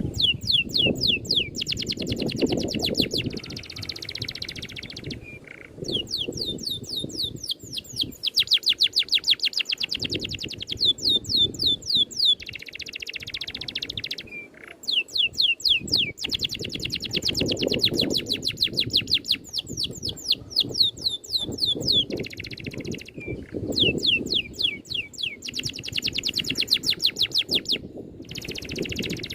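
A songbird singing a fast rolling song: long runs of rapid, sharply falling whistled notes, about ten a second, alternating with stretches of scratchy chatter, over a low uneven background rumble.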